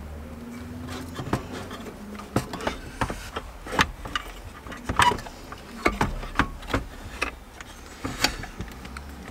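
Irregular plastic clicks, knocks and rubbing as the dash fascia, carrying the stereo and heater controls, is handled, pushed into the dashboard opening and seated.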